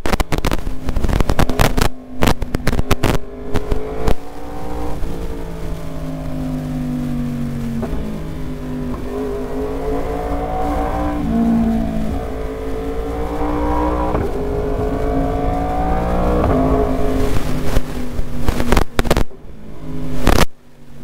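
Yamaha R1's crossplane inline-four engine heard from the rider's seat while riding, its note rising and falling with the throttle and stepping down several times. Sharp crackles on the microphone cut through it in the first few seconds and again near the end.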